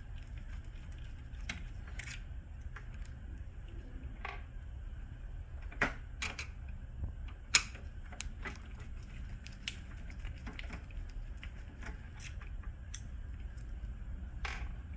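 Scattered light clicks and taps of hands and tools working on a laser printer's plastic covers and fuser assembly, with two sharper clicks about six seconds in and again a second and a half later, over a steady low hum.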